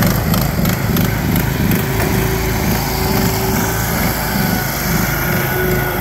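Two riding-mower engines running hard together, a modified lawn-tractor-style mower and a John Deere zero-turn mower racing side by side, with a steady whine joining the engine drone about two seconds in.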